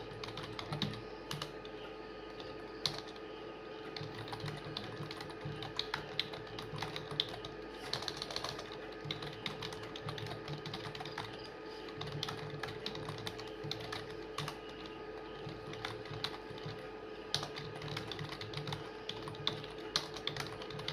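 Fast, continuous typing on a computer keyboard: a rapid, uneven stream of key clicks during a typing speed test, over a faint steady hum.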